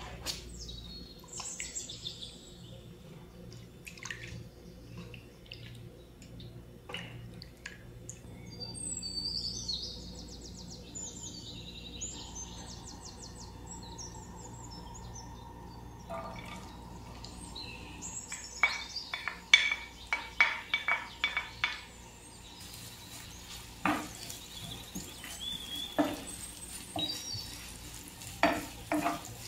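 Recorded forest birdsong chirping in the background in the first half. About halfway through, sliced onions hit hot olive oil in a stone-coated frying pan: frying sizzle with many sharp clicks and knocks as they are tipped in and stirred with a wooden spoon.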